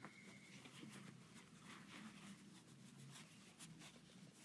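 Near silence, with faint rustling and light scratchy ticks of cotton fabric being bunched and handled as a bodkin is pushed through a drawstring bag's casing.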